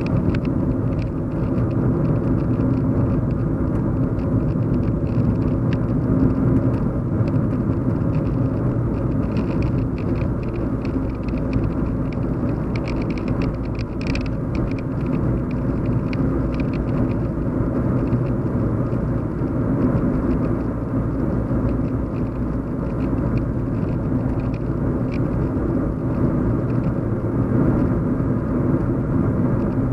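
Steady low road hum of a moving car heard from inside the cabin: engine and tyre rumble with no change in speed, and faint light ticks and rattles above it.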